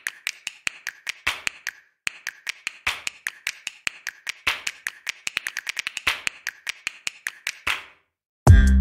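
Diamond painting drill pen tapping resin drills onto the sticky canvas: quick, light clicks, several a second, with short pauses. Music cuts in near the end.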